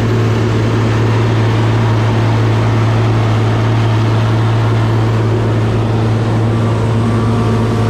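Diesel engine of heavy farm machinery running steadily at constant speed, with a strong, even low hum.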